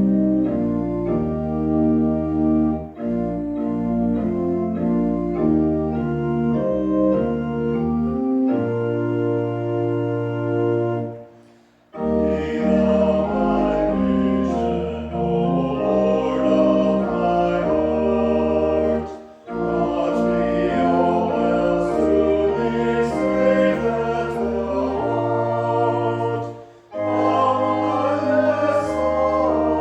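Organ playing slow sustained hymn chords as an introduction, then about twelve seconds in singing begins over the organ accompaniment, with short pauses between phrases.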